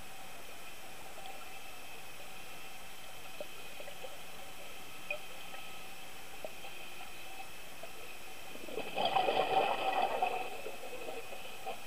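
Steady underwater hiss with a few faint ticks, then, about nine seconds in, a diver's exhaled air bubbles from the scuba regulator burbling for about a second and a half.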